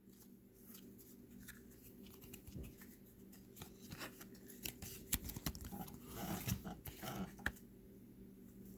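Trading cards and packaging handled by hand: scattered soft clicks, scrapes and rustles, busier between about five and seven and a half seconds in.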